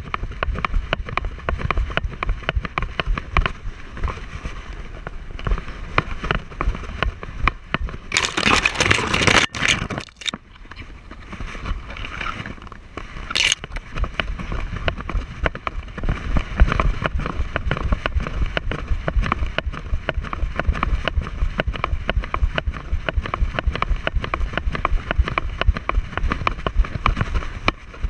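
A dog trotting on desert gravel, heard through a camera strapped to his head: a fast, steady patter of footfalls and the mount jostling. About eight seconds in there is a louder rush of noise lasting about two seconds.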